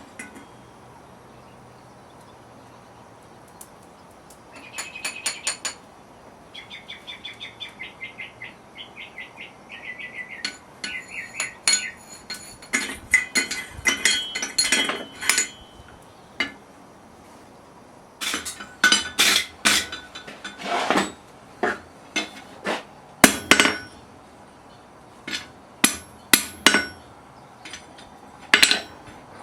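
Blacksmith's hammer striking metal on an anvil in bursts: a run of light, quick ringing taps, then heavier, irregular blows in several clusters.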